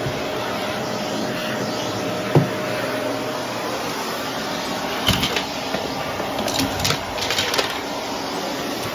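Shark upright vacuum cleaner running steadily with its brushroll on carpet. A sharp knock comes about two seconds in, and a run of clicks and rattles between about five and eight seconds.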